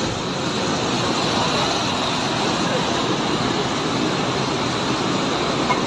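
Floodwater of the swollen Parvati River rushing past in a steady, loud, unbroken torrent.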